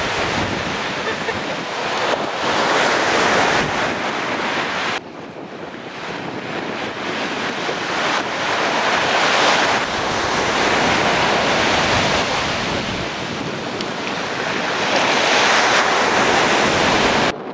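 Stormy sea surf breaking on a pebble shore, a steady rush of water that swells and eases every few seconds, with gusty wind buffeting the microphone. The level drops suddenly about five seconds in.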